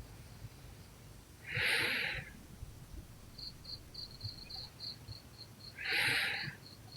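A sleeping person snoring: two breathy, hissing snores about four seconds apart, each lasting under a second. A rapid, high chirping runs steadily in the background.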